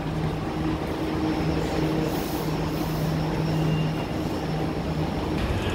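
MRT metro train at the station platform: a steady rumble with a low hum, the hum fading about four seconds in.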